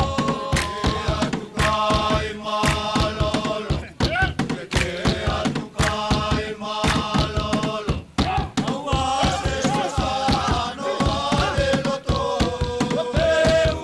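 Group of voices chanting a Futunan mako dance song, with sharp percussive beats a few times each second.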